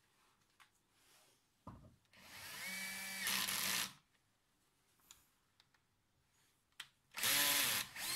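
Cordless drill boring into a thick aluminium plate in two bursts of about two seconds each. Each burst starts with a rising whine that levels off, then cuts off. A short knock comes just before the first burst.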